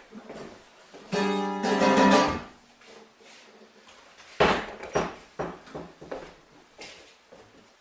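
Acoustic guitar strummed, its chord ringing for about a second, followed about two seconds later by one loud sharp thud and a few smaller knocks and clatters.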